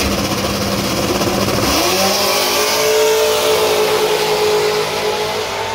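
Two big-rim donk drag cars launching side by side, their engines going from a rough roar at the line to full throttle about two seconds in, the note climbing as they pull away down the track.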